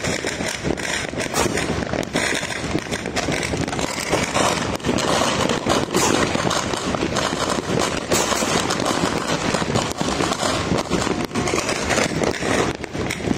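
Many firecrackers and aerial fireworks going off all around at once: a dense, unbroken crackle of overlapping pops and bangs.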